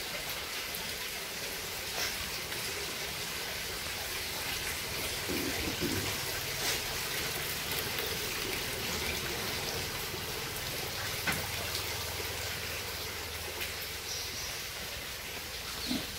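A steady, rain-like hiss of water, with a few faint clicks.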